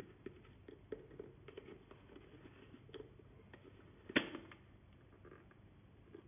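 Plastic parts of a cordless stick vacuum's dust cup and filter assembly being handled and fitted together: small clicks and scrapes, with one sharper, louder click about four seconds in.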